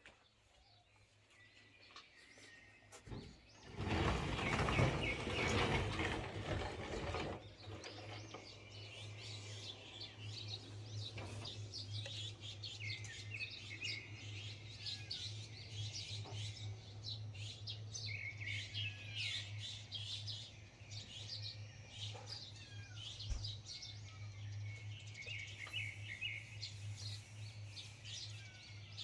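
Many small birds chirping and twittering, with a steady low hum underneath. A loud rustling noise lasts about three seconds near the start.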